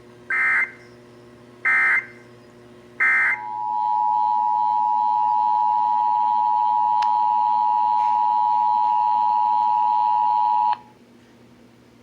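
Three short bursts of EAS digital data tones (SAME code), the end-of-message signal after a test message. Then the EAS two-tone attention signal (853 and 960 Hz together) starts and holds steady for about seven and a half seconds before cutting off suddenly.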